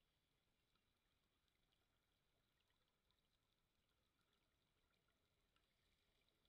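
Near silence: only a faint hiss with scattered tiny clicks.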